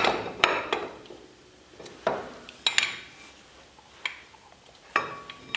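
Metal parts being handled: about five separate sharp clinks and knocks, a second or so apart, some with a short metallic ring, as the brake caliper and tools are picked up and set down.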